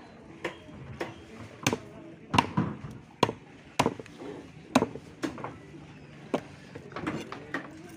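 Large machete chopping grouper flesh on a round wooden chopping block: about a dozen sharp, irregular knocks, the blade striking the wood through the fish.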